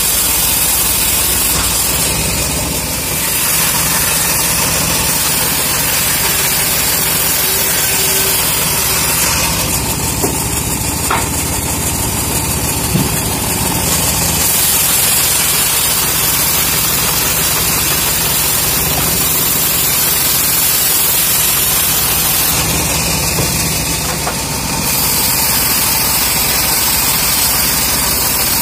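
Homemade bandsaw sawmill running at full speed, its blade ripping through teak: a loud, steady machine noise whose hiss brightens and dims a few times.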